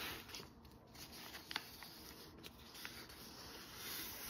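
Quiet paper rustling as the backing paper is peeled off an iron-on transfer sheet by hand, with a few small crackles.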